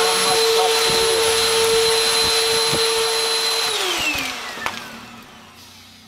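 Bissell PowerForce upright vacuum cleaner running with a steady whine, then switched off a little under four seconds in, its motor falling in pitch as it winds down.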